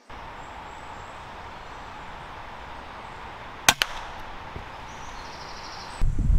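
A single sharp crack about halfway through, typical of a moderated Weihrauch HW100 .22 PCP air rifle shot at a squirrel on a feeder. A smaller knock follows a split second later. Steady woodland hiss lies underneath, and near the end a louder low rustling noise takes over.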